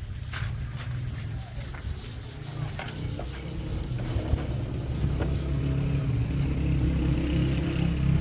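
Fetal heartbeat played through an ultrasound Doppler, a rhythmic swishing pulse over a low rumble. It starts suddenly and grows louder.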